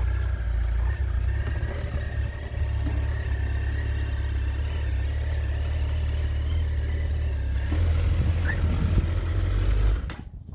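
Motorcycle engine running at low revs while the bike is eased forward on throttle and clutch. It is a little louder for the last couple of seconds, then is switched off suddenly near the end.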